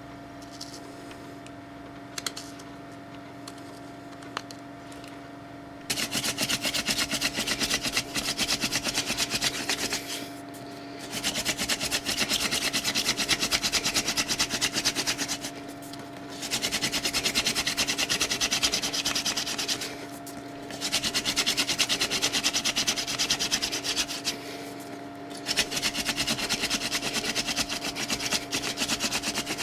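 Wooden hand-drill spindle spun between the palms against a hearth board in friction fire-lighting: a dry rubbing rasp that starts about six seconds in and goes in bouts of four to five seconds with short breaks between them.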